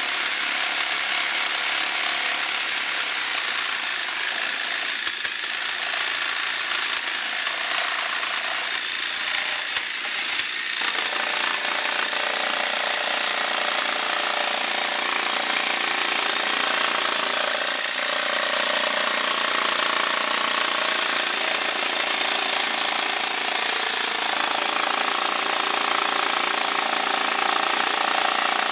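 Handheld power saw running steadily while pressed against plastic paver molds, its vibration shaking air bubbles out of the freshly poured concrete.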